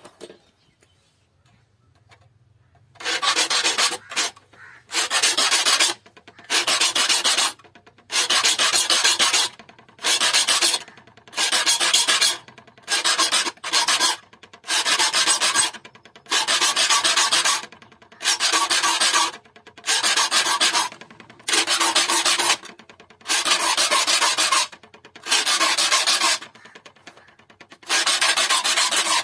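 A file pushed across the steel teeth of a hand saw to sharpen them, in repeated rasping strokes about a second long, beginning about three seconds in and coming roughly every second and a half, with a brief pause near the end.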